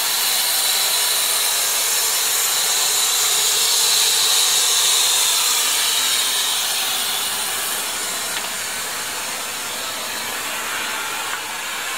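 Steady loud hiss of steam escaping from a stationary, steamed-up locomotive, swelling about four seconds in and easing off somewhat in the second half.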